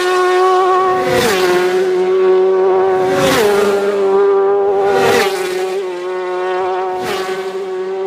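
Racing motorcycles passing one after another at high revs, the engine note dropping in pitch as each bike goes by, about every two seconds.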